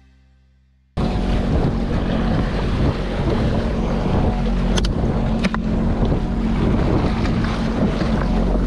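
After a faint fading tail of music, wind buffets an action camera's microphone over open sea, with waves washing around a jet ski and a steady low hum from the idling Sea-Doo Fish Pro. Two brief clicks come about midway.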